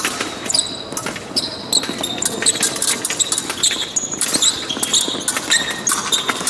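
Épée fencing action on the piste: quick stamping footwork and shoe squeaks, with sharp clicks of the blades meeting.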